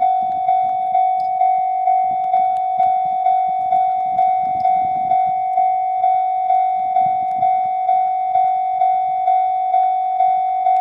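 Japanese level-crossing warning bell ringing in an even repeating strike of one pitched tone, about two strikes a second. A faint low rumble comes and goes beneath it.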